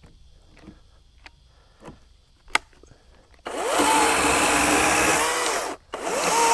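A few faint clicks, then a battery-powered EGO 56V brushless chainsaw starts about three and a half seconds in and cuts into a log, its motor pitch wavering under load. It cuts out briefly near the end and starts again.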